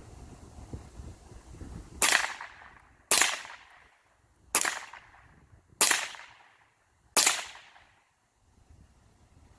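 Ruger 10/22 semi-automatic rifle firing .22 LR rounds, unsuppressed: five sharp shots, roughly one every second and a bit, each trailing off in a short echo.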